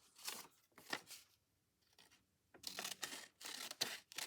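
Scissors cutting paper from an old envelope in a series of short, faint snips, with a quiet gap in the middle.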